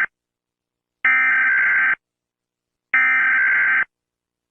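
Emergency Alert System SAME header: bursts of digital data tones, each just under a second long with about a second of silence between them. The tail of one burst is heard at the very start, then two full bursts follow. These coded bursts open an emergency alert broadcast.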